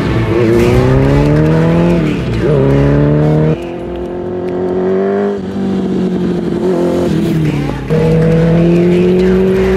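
Honda CB750 cafe racer's four-cylinder engine with modified carburetors and mufflers, revving up under way: the pitch climbs, drops at a gear change about two seconds in and climbs again. It runs quieter for a couple of seconds in the middle, then comes back loud and fairly steady, rising slowly near the end.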